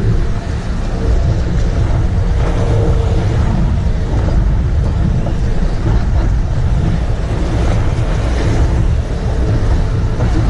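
Motorboat running at speed over choppy water, heard from a camera mounted on board: a loud, steady rumble of engine, rushing wind and the hull on the water.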